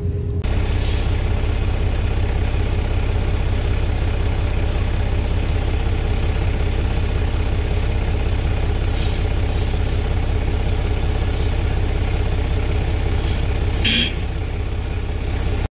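Dump truck's diesel engine idling steadily, heard from inside the cab while the truck waits in line. A short sharp sound comes near the end, after which the engine sounds a little quieter.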